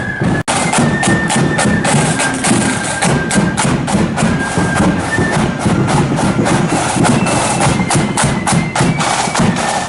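A marching band passing close and playing loudly: a high melody line of held notes over a steady beat of snare and bass drums. The sound cuts out for an instant about half a second in.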